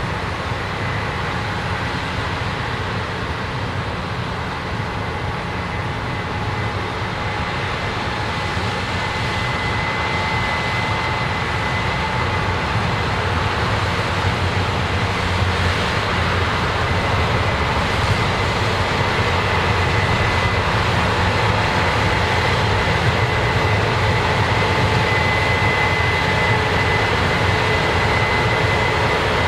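Heavy corn-harvesting machinery running steadily: engine rumble with a high mechanical whine, growing louder from about ten seconds in.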